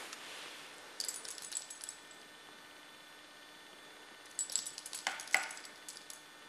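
Light metallic jingling and rattling in two bursts, about a second in and again from about four to five and a half seconds in, as a cat swats a toy dangling from a sisal scratching post.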